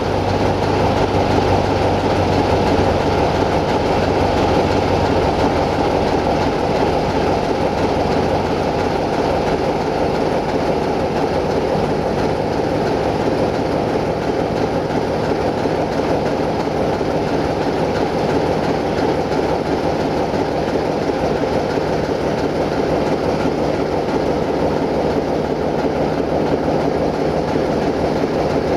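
LDH45 diesel-hydraulic shunting locomotive running under way with a coach in tow: a steady engine drone mixed with the rumble of wheels on the rails. A deeper engine tone drops away about six seconds in.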